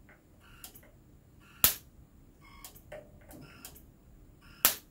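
Two sharp snaps about three seconds apart: high-voltage pulses from a Nemtek Wizord 4 electric fence energizer sparking across from the output to the return wire, a sign the energizer is giving output. Fainter ticks come about once a second between them.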